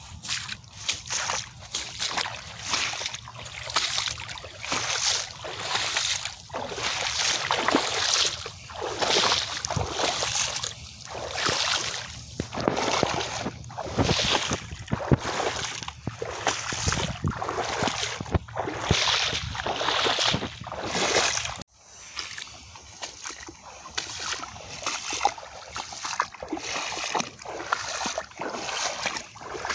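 Boots wading through shallow, grassy swamp water, splashing and sloshing with each step at a steady walking pace, about one and a half steps a second. The sound drops out abruptly about two-thirds of the way through, then the splashing steps resume a little quieter.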